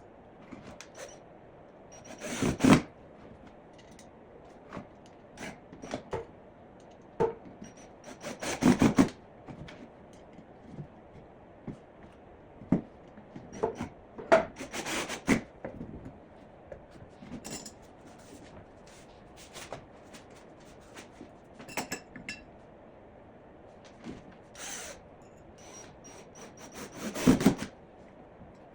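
Woodworking with hand and power tools: four short bursts, each under a second or so, of a drill driving screws into wood, with scattered knocks and handling clatter of lumber and metal brackets between.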